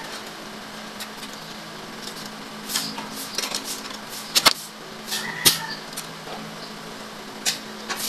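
Sharp clicks and light knocks from the parts of a grass cutter's recoil starter, its pulley and starter cord, being handled, with the two loudest clicks about four and a half and five and a half seconds in. A steady low hum runs underneath.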